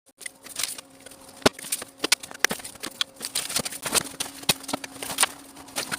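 Rapid, irregular sharp clicks and knocks of hard objects over a faint steady hum.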